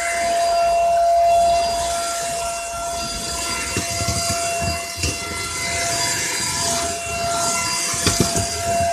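Dirt Devil Powerstick stick vacuum running with a steady high whine and rushing air, its suction-only head having no brush roll. A few short knocks and crackles come about halfway through and again near the end as it moves over the floor.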